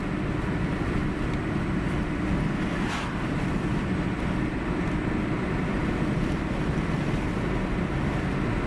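A car driving, heard from inside the cabin: steady road and engine noise, with a brief swish about three seconds in.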